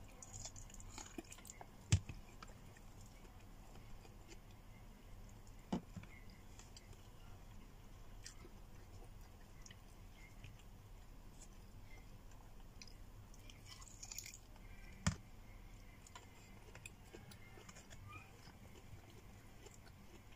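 A person eating by hand, faint chewing and biting, with scattered small clicks. There are three sharper knocks, about two seconds in, about six seconds in, and the loudest about fifteen seconds in.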